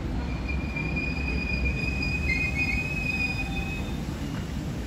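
Electric suburban train's wheels squealing on curved track: thin high-pitched squeal tones over a low rumble of the train. The squeal fades out a little before the end.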